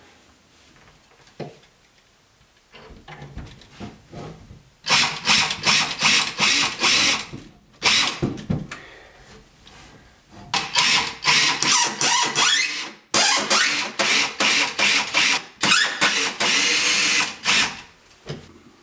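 DeWalt 14.4 V cordless drill running in a series of short, rapid trigger bursts, starting about five seconds in, pausing briefly, then running in bursts again until near the end.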